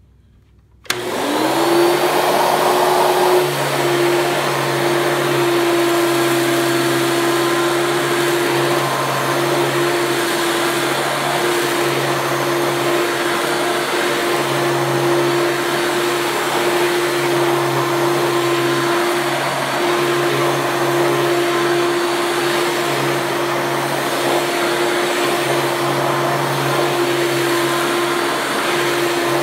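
Hoover Elite II upright vacuum cleaner switched on about a second in, its motor winding up to speed with a rising whine and then running steadily. The motor still has a little bearing sound, which the owner expects to go away with use.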